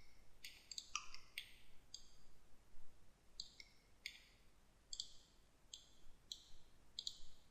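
Faint computer mouse clicks: a dozen or so single, sharp clicks at irregular intervals.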